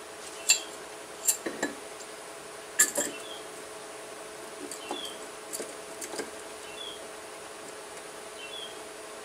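Sharp metal-on-metal clinks and knocks from the Suzuki Samurai differential carrier, its ring gear and bearings being set into the steel third-member housing. There is a handful in the first three seconds and lighter ones around five to six seconds.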